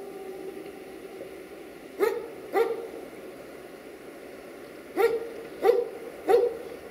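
A dog barking: two barks about two seconds in, then three more in quick succession about five seconds in.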